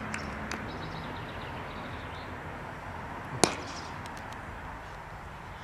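A cricket bat striking the ball once about three and a half seconds in, a single sharp crack, over a steady outdoor background hiss.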